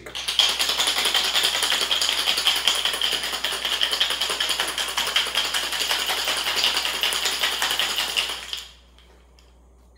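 Ice rattling in a cocktail shaker being shaken hard, a fast continuous clatter that stops suddenly about eight and a half seconds in.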